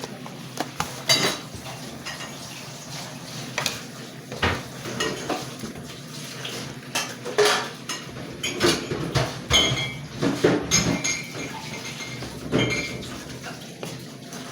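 A cooking utensil scraping and clinking irregularly against a pot while chicken pieces are stirred. A few of the knocks ring briefly with a metallic tone in the second half.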